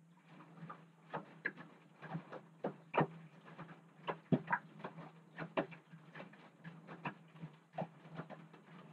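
Front-loading washing machine in a wash cycle. The drum motor hums steadily while wet clothes and water slosh and knock irregularly as the drum turns.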